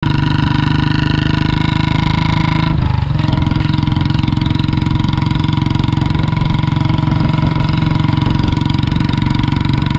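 Royal Enfield single-cylinder motorcycle running along the road, its exhaust beating steadily out of a chrome silencer, with a brief dip about three seconds in.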